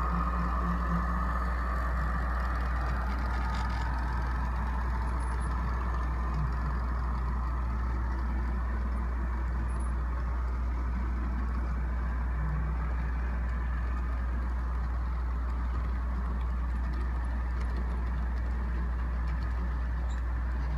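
Long model intermodal train rolling steadily past, a continuous rumble of wheels on track. A higher tone from the passing diesel locomotives fades out about a second in.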